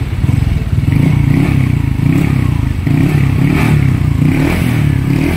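Honda Click 125 scooter's single-cylinder engine running through an MT8 aftermarket power pipe exhaust, idling with several short throttle blips. The pipe still has its fibre packing and sounds not very loud, just a little noisy.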